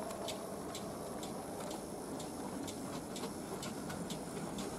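Model railway steam locomotive and train running on the track: a steady motor and wheel rumble with regular sharp clicks about twice a second.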